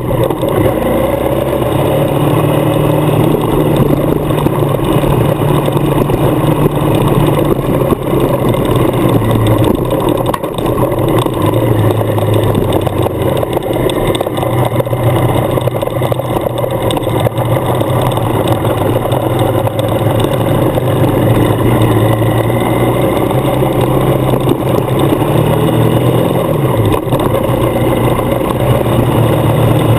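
Suzuki adventure motorcycle's engine running steadily while under way on a gravel road, over a constant rush of road and wind noise. Near the end the revs dip briefly and then climb again.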